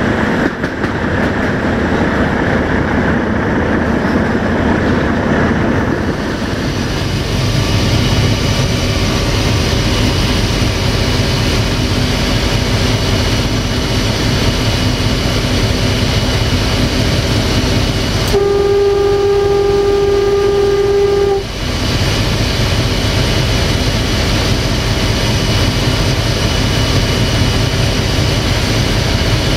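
CFR 060-DA diesel-electric locomotive's Sulzer diesel engine running with the wheels rolling over the track, heard from the cab. About two-thirds of the way through, the locomotive's horn sounds one steady blast of about three seconds as the train nears a level crossing.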